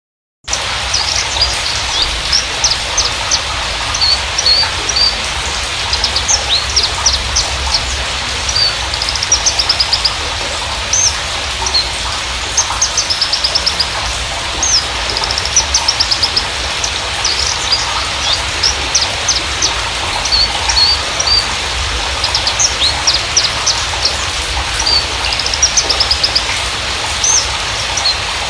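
Horsfield's bushlark (Mirafra javanica parva) singing continuously: quick runs of short, high chirps and trills, over a steady hiss and a low hum.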